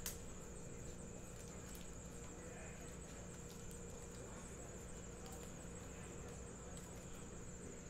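Faint, steady room tone: a continuous high-pitched electronic whine over a low hum, with a few faint ticks from foil card packs being handled.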